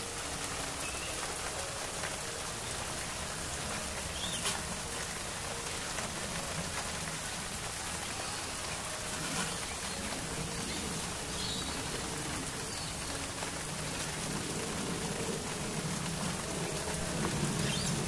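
Steady rain falling, with a couple of single drops standing out louder, about four and nine seconds in.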